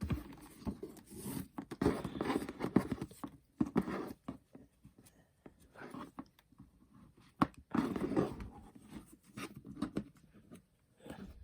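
Hands opening a gift box and pulling at its ribbon: irregular rustling, scraping and tapping of cardboard, paper and ribbon, with sharp clicks and knocks between.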